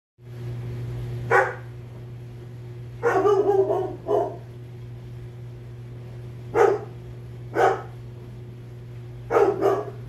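A dog barking in short barks, about seven in all, with a quick run of them about three seconds in. Under the barks runs the steady low hum of a KAPAS portable countertop dishwasher running.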